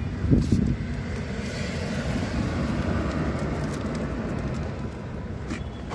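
Adhesive backing paper being peeled off a foam speaker insulator ring, a steady crackling hiss with paper rustling that eases near the end.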